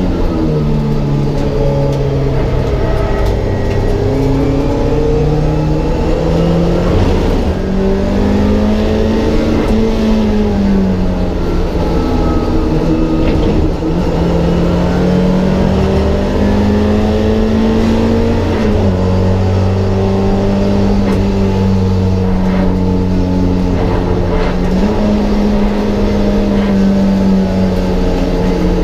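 Mk1 Ford Escort race car's engine at racing speed, heard from inside the stripped cabin. Its note climbs and falls in pitch several times, dropping suddenly about two-thirds of the way through.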